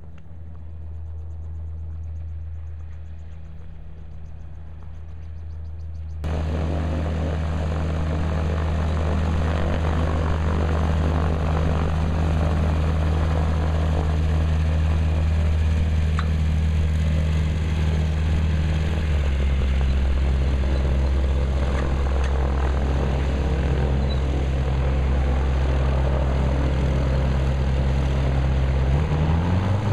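Xenon gyrocopter's engine and pusher propeller running steadily at taxi power. It is heard from far off at first, then abruptly much louder and close after about six seconds. About two-thirds of the way through, the engine note steps lower, and near the end there is a brief rise and fall in pitch.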